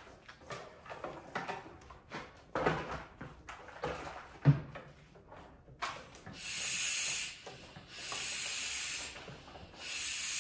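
Scattered knocks and scrapes of parts being handled, then, about six seconds in, three hissing bursts of pressurized spray of about a second each.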